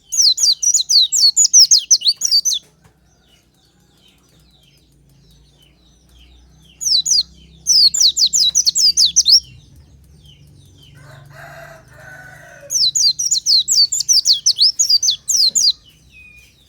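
White-eye (pleci) song: three bursts of rapid, high, sweeping chirps, each two to three seconds long, with pauses between them. A lower, hoarse call lasting about two seconds sounds between the second and third bursts.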